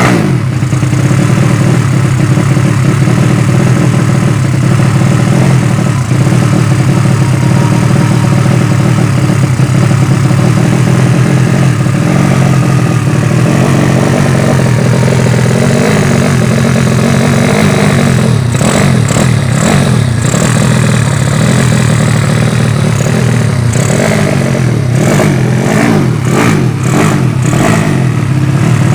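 Yamaha Vega ZR motorcycle's single-cylinder four-stroke engine, built up to 200cc with a swapped Mio cylinder, running loud and steady through an aftermarket exhaust. In the second half come bursts of throttle blipping. Its carburettor is not yet set right, and the builder says it still runs lean and bogs ("tekor").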